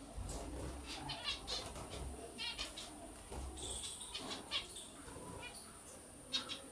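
Pet finches in wire cages giving short, scattered chirps, with wings fluttering now and then.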